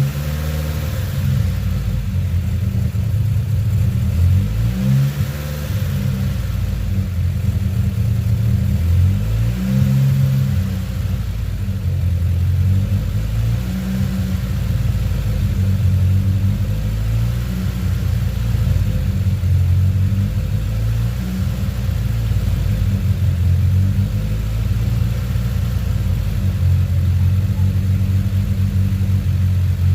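Turbocharged Honda Civic D15B four-cylinder engine idling, its pitch wavering up and down a few times in the first ten seconds before settling steady. It is running on a freshly replaced idle air control valve.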